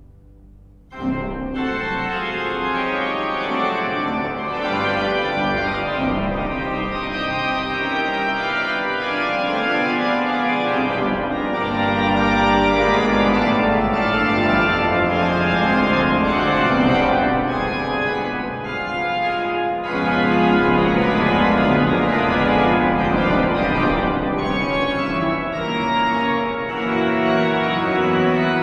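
Organ playing a fast, full-textured passage on the manuals, starting abruptly about a second in.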